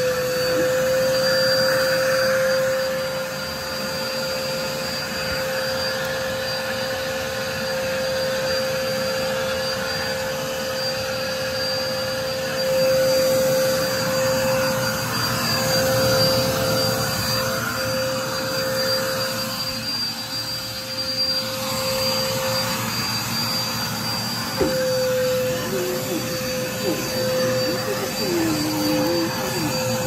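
Upright bagless vacuum cleaner running steadily as it is pushed over carpet, its motor holding one steady whine. There is a brief knock about 25 seconds in.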